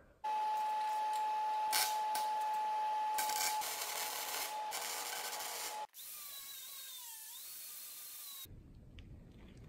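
Welding on steel square tube: a steady crackling hiss with a constant whine and a few sharp pops, lasting about six seconds. Then an angle grinder grinding the steel tube end, its whine sagging and recovering as it bites.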